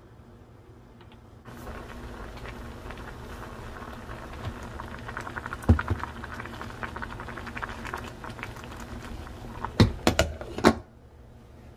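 A pot of perilla-seed siraegi soup bubbling at a boil, a dense crackling patter that starts about a second and a half in and stops short near the end. There is one sharp knock in the middle and a quick run of three knocks just before it stops.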